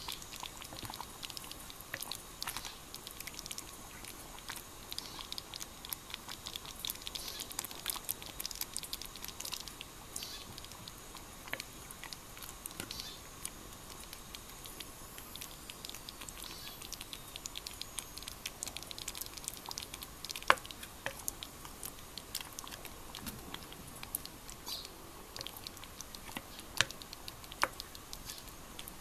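Thick beef stew simmering in a small cast-iron Dutch oven: a dense patter of small pops and crackles, with a few sharper clicks from the ladle against the pot in the last third.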